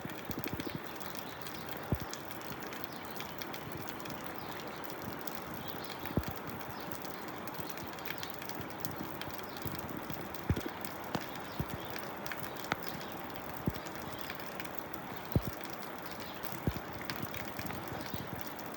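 Water splashing and dripping, with a steady wash of noise, many small drip-like clicks and a few louder plops every few seconds.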